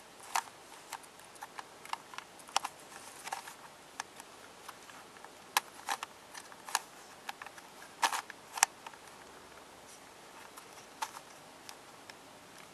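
Plastic twisty puzzle being turned by hand: irregular sharp clicks and clacks of its pieces snapping into place, with a cluster of louder ones a little past the middle.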